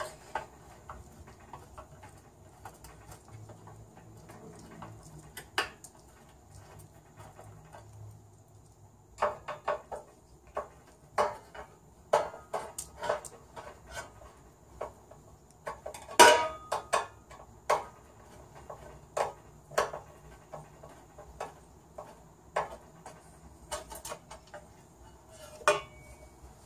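Irregular metallic clicks and clinks of hand tools working the screws of a Rancilio Silvia espresso machine's black sheet-metal plate, with metal knocking against the steel frame as the plate is worked loose and lifted off. The loudest clank comes about sixteen seconds in.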